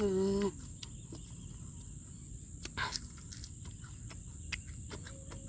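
Insects buzzing in a steady high-pitched drone, with scattered faint clicks. Right at the start a woman gives a short hummed "mmm" while chewing.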